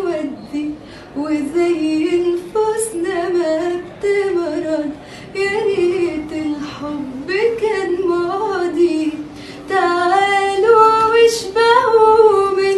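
A woman singing an unaccompanied Arabic song. The melody glides and is ornamented, broken only by short breaths.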